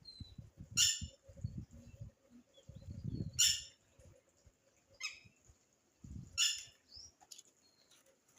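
A bird gives four short, harsh squawks a second or two apart, with a few faint thin chirps between them, over low knocking and rustling.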